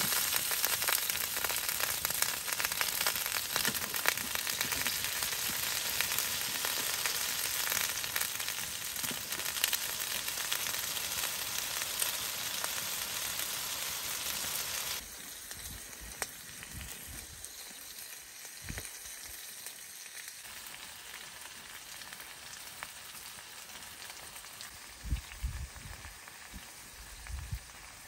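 Food sizzling and spitting in a hot frying pan, a steady crackling hiss that stops abruptly about halfway through. A quieter background follows, with a few soft low thumps near the end.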